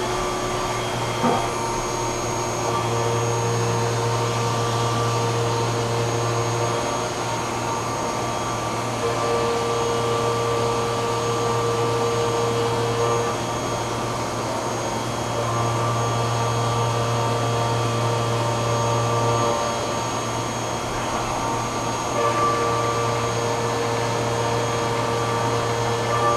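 Haas Mini Mill CNC spindle running a 3/8-inch IMCO Streaker end mill through adaptive clearing of a production part, with coolant mist spraying: a steady machine whine and cutting noise whose tone and loudness change every few seconds.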